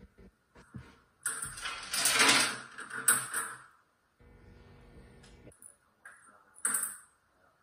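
Hand tools working on motorcycle engine mount bolts: about a second in, a couple of seconds of clicking, rattling and scraping on metal, like a ratchet turning. It is followed by a few single clicks and a sharp tap near the end.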